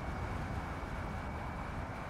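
BMW 530d Touring driving at speed on an open road: a steady low rumble of engine, tyre and wind noise, with no change in pace.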